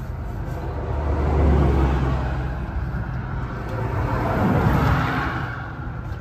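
Road vehicles passing by, two swells that build and fade, the second rising higher before it dies away, over a steady low engine hum.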